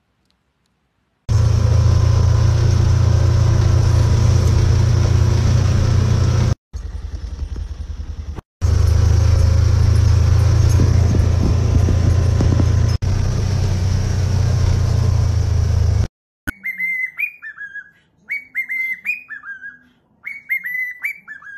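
An engine runs steadily and loudly, low-pitched, cutting out briefly twice. About sixteen seconds in it stops, and a cockatiel whistles short repeated phrases.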